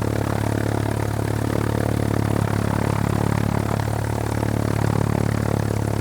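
Propeller aircraft engine running at a steady speed with a low, even drone and fast regular pulsing.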